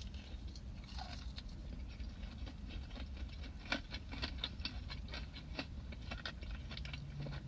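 Close-miked chewing of a fried chicken tender: soft, irregular crackles and wet mouth clicks.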